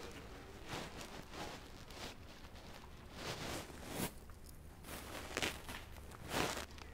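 Faint footsteps, a soft step every half second to a second, irregularly spaced.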